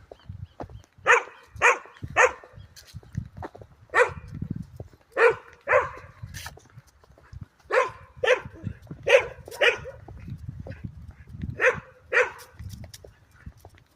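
A dog barking repeatedly: about a dozen short single barks, mostly in quick pairs or threes with pauses between.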